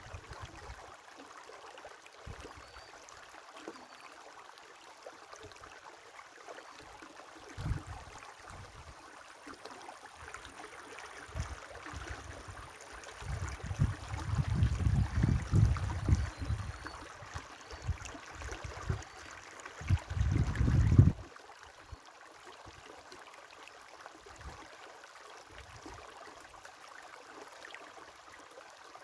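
A river running steadily with a continuous rushing hiss. Low gusts of wind buffet the microphone about halfway through and again about two-thirds of the way in, the loudest parts, the second one cutting off suddenly.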